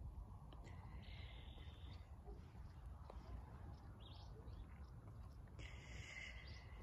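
Quiet outdoor ambience: a faint, steady low rumble on the microphone, with two faint bird calls, one about a second in and one near the end.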